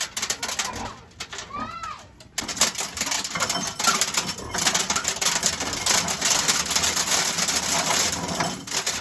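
A grain mill grinding shelled corn: from about two and a half seconds in, a loud, dense, rapid clatter of kernels being cracked. Just before it starts, a cat meows.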